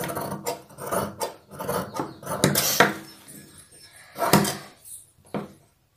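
Large steel tailor's shears cutting through folded lining fabric: a run of crisp snips about two a second, then two more spaced-out strokes later on.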